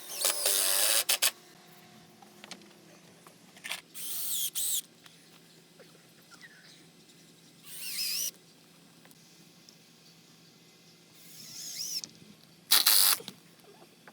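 Power drill/driver running in short bursts, about five times, with a wavering whine as it drives screws, the first and last bursts the loudest.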